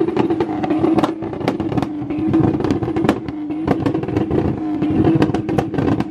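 Turbocharged Toyota Supra's engine held at high revs on a two-step launch limiter, its exhaust banging and popping in rapid, irregular cracks. The revs drop right at the end.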